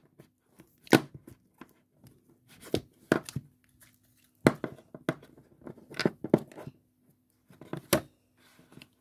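Small round plastic slime tubs being handled on a table: a string of short, sharp, irregular clicks and knocks as the containers are set down and a snap-on lid is opened.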